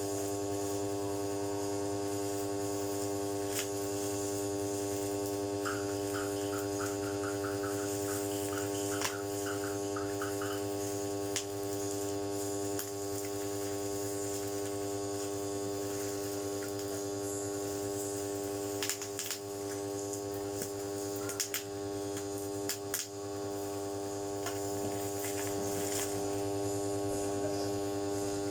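Steady electrical hum at mains frequency with a stack of even overtones, broken by a few faint clicks.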